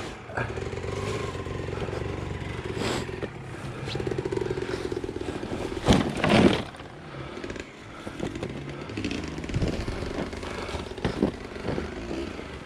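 Dirt bike engine running as the bike goes down a snowy slope. About six seconds in comes a loud crash with clatter and scraping as the bike goes down on its side. The engine then runs on more quietly, with scattered knocks.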